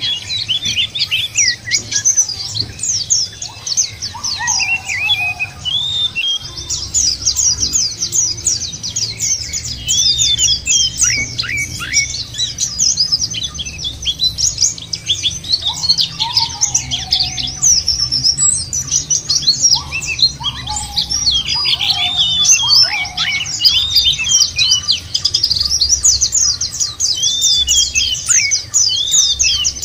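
White-eyes (pleci) singing and chattering together: dense, overlapping rapid high twittering and trills with no break. Now and then lower, falling whistled notes come through underneath.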